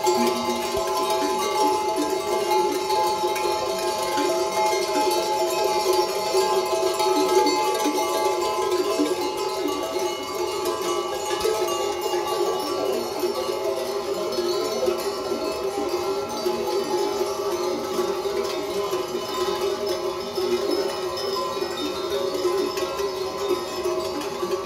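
Many sheep bells ringing together without pause as a large flock walks along, a dense, overlapping jangle of bell tones.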